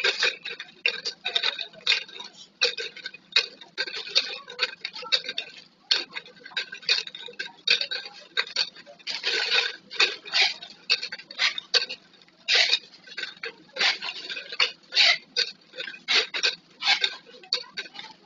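Plastic flip-top bottles and caps clicking and knocking against each other in quick, irregular clatter as they are handled and counted.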